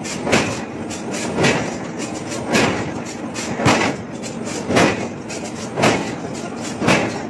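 Heavy forging blows on hot steel in a steady rhythm, about one strike a second, over continuous shop machinery noise.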